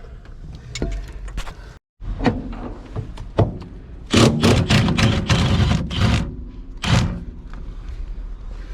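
Hand tools clanking and knocking on metal during work on a car's rear suspension. Scattered clicks give way to a dense run of clattering about four seconds in, then a single sharp knock near seven seconds.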